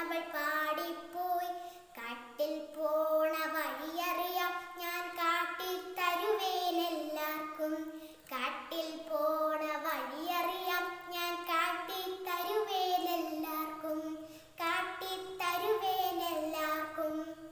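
A young girl singing a Malayalam poem solo and unaccompanied, in the melodic chanted style of poetry recitation, phrase by phrase with short pauses for breath.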